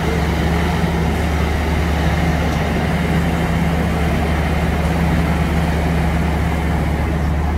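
Large diesel lorry engine idling steadily, a constant low drone.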